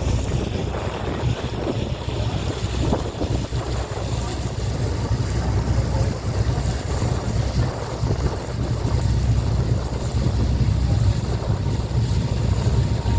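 Passenger boat's engine running steadily underway, a constant low drone, with water rushing past the hull and wind on the microphone.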